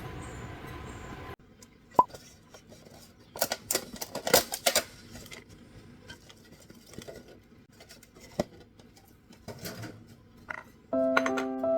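Scattered clinks, taps and light clatter of dishes and cutlery being handled in a kitchen, with a small cluster of knocks a few seconds in. A steady hiss stops early on, and soft background music comes in near the end.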